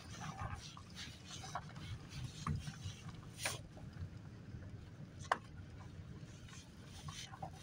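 Low, steady rumble of a car rolling along a gravel lane, heard from inside the cabin, with scattered faint clicks and two sharper ticks about three and a half and five seconds in.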